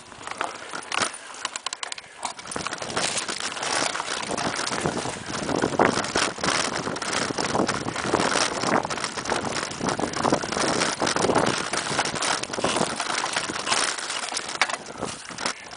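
Mountain bike ridden fast over a bumpy dirt singletrack: a steady rush of tyre and air noise with a constant clatter of rapid clicks and rattles from the bike. It grows louder about three seconds in.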